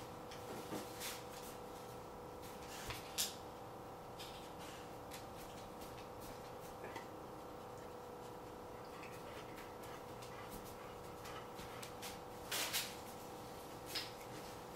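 A dog rummaging in a kitchen trash can: scattered faint rustles and crackles of garbage and wrappers, the loudest about three seconds in and again near the end, with a quiet spell in the middle while the dog lifts its head. A steady hum runs underneath.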